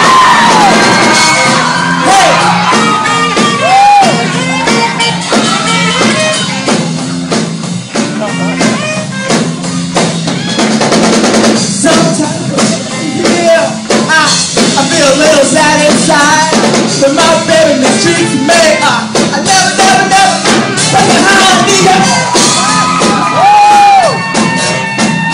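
Live band of electric guitar, saxophone and drum kit playing loudly with a steady beat, with singing over it, heard through the echo of a large hall.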